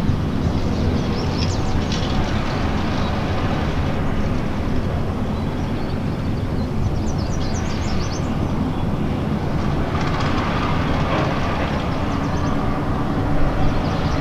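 Kinner B5 five-cylinder radial engine of a 1935 Kinner B-2 Sportwing running steadily at low power while the plane taxis.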